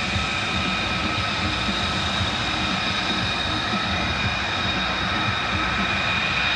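A jet turbine running steadily: a constant high whine over a broad rushing noise.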